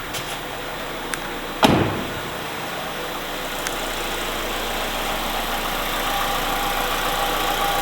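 A single sharp thump about two seconds in, then a Nissan KA24 2.4-litre inline-four idling warm, slowly growing louder, with the knock of worn connecting-rod bearings. The bearings were ruined by oil starvation from a bent oil pan.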